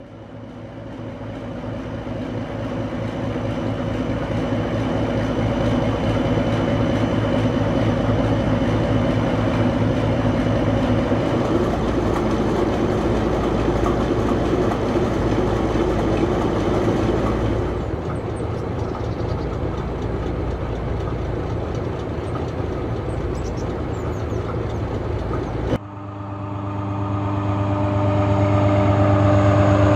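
Diesel train running along the line, its engine drone and a fine low rhythm fading in over the first few seconds. About 26 s in the sound changes abruptly to a louder, closer engine with strong steady tones.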